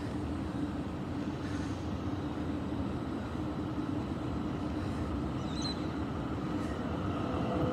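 Steady low rumble of outdoor urban background noise, like distant traffic, with no distinct events.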